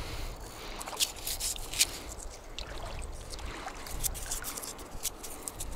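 Irregular sharp splashes and trickling water from a hooked fish being played at the surface, over a low wind rumble.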